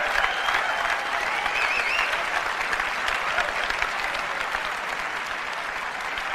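Large auditorium audience applauding, with one person whooping about two seconds in; the applause eases off gradually.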